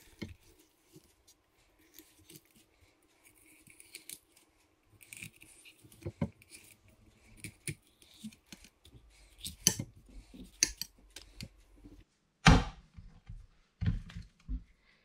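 A kitchen knife filleting a mackerel on a glass chopping board: the blade cuts and scrapes along the fish, with small clicks against the glass. A sharper, louder knock comes about twelve and a half seconds in, and a few more about a second and a half later.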